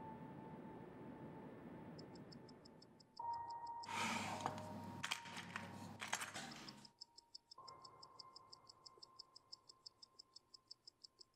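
Mechanical watch ticking rapidly and evenly over quiet background music with soft held tones; the ticking starts about two seconds in. From about four to seven seconds a louder stretch of rustling and sharp metallic clicks covers it.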